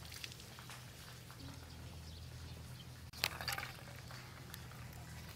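Hands working in a small steel bowl of water, with soft wet handling sounds and one sharp clink a little over three seconds in, over a steady low hum.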